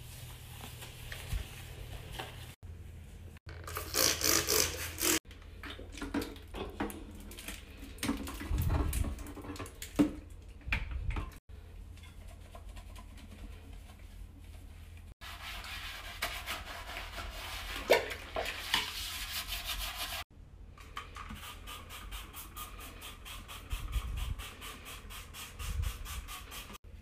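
Bathroom cleaning sounds in quick succession: a cloth wiping a sink basin, scrubbing and rubbing on porcelain, and handling knocks. Near the end there is a run of quick, even scrubbing strokes.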